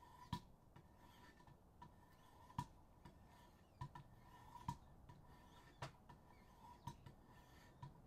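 Faint strokes of a 3000-grit stone on a Wicked Edge WE130 guided-rod sharpener along the tip edge of a tanto knife: light clicks and scrapes at uneven spacing, about one a second, over a low hiss.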